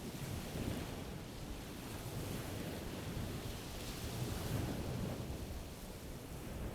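Sea waves breaking and washing on a shore: a continuous rush of surf that swells slightly in the middle.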